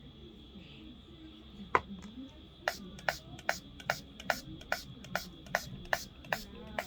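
A single sharp click, then a steady run of short, sharp clicks or taps, about two and a half a second, starting a little before halfway.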